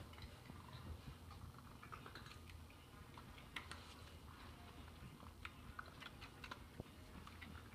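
Faint, scattered small clicks and crunches of cats eating dry treats, taken from a hand and off a wooden floor.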